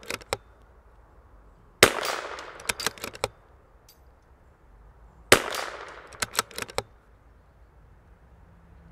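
Two shots from a CZ 457 MTR bolt-action .22 LR rifle firing RWS Special Match, about two and five and a half seconds in, each with a short fading echo. After each shot comes a quick run of clicks as the bolt is worked for the next round.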